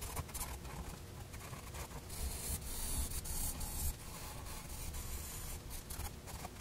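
Felt-tip permanent marker (Sharpie) scratching across a lined paper pad as block letters are written and shaded in, a run of short scratchy strokes of the tip on the paper.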